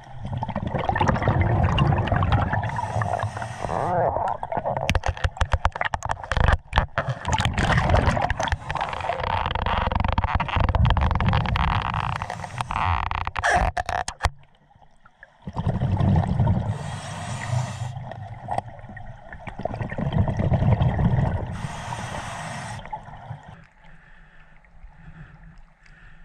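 Underwater rush of river current against a GoPro housing, with gurgling bubble bursts and runs of sharp clicks and knocks on the camera about five to eight seconds in and again near thirteen seconds. It drops much quieter near the end as the camera comes to the surface.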